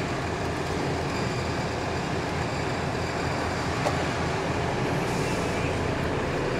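Steady lorry engine idle and cab ventilation fan heard from inside an HGV cab, with a single click about four seconds in.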